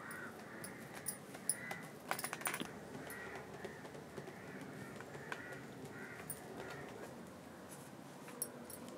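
Crows cawing repeatedly in the background. About two seconds in there is a short burst of rustling and clicking as banana leaves are handled on a woven bamboo tray.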